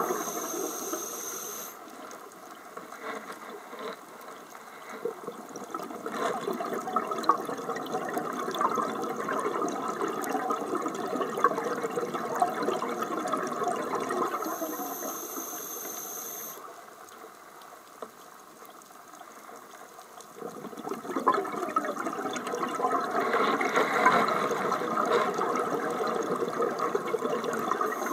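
Scuba diver breathing through a regulator underwater, heard through the camera housing. A short high hiss of inhaling comes near the start and again about halfway, and each is followed by a long stretch of exhaled bubbles rushing and crackling.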